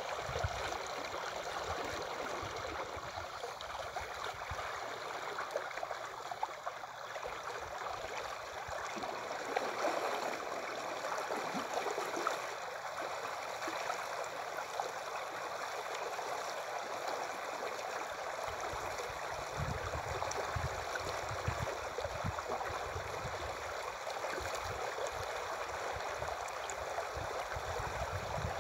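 River water flowing and rippling at the bank, a steady rushing hiss. Low rumbles come and go near the start and again about two-thirds of the way through.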